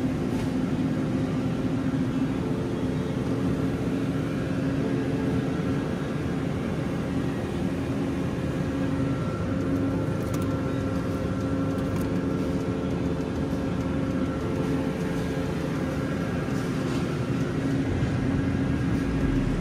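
Steady mechanical hum of supermarket equipment, with several held tones that drop out and return now and then.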